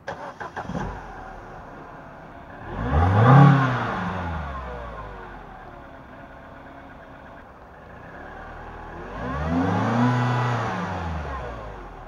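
Mini One R56's naturally aspirated 1.6-litre four-cylinder petrol engine, fitted with a Pipercross PP1718 panel air filter, starting with a short choppy burst, settling to idle, then revved twice: a quick blip about three seconds in and a slower, longer rev near ten seconds, each falling back to idle.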